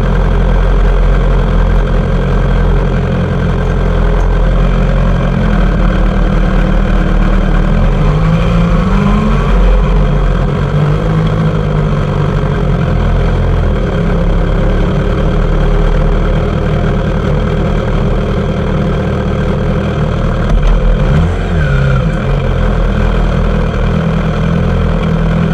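Suzuki GSX-R750 sport bike's inline-four engine running at low riding speed, with the revs rising and falling briefly about eight seconds in and again near the end.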